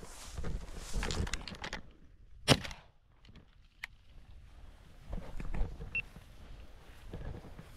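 Footsteps and brushing through field cover, with one sharp click about two and a half seconds in.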